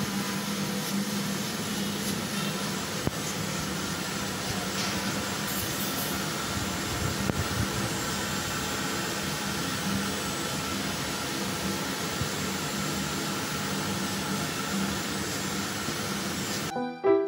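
Large drum coffee roaster running: a steady machine noise with a low hum and a fainter higher whine. Music cuts in near the end.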